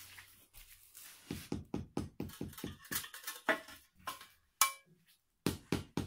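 Brisk, repeated strokes of a hand brush scrubbing over brick, about four a second, with a short metallic clink with a brief ring a little past the middle.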